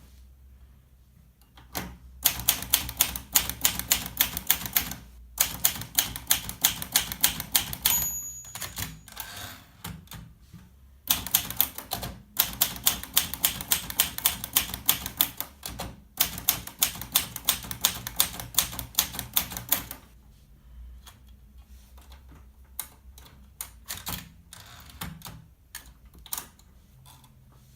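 Olivetti Valentine manual portable typewriter being typed on: runs of rapid key strikes with short pauses between them, and a short high ring about eight seconds in. The strokes grow sparser and softer in the last third.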